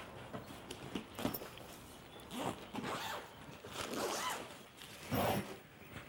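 A bag's zipper being pulled open in a series of short strokes, the loudest about five seconds in.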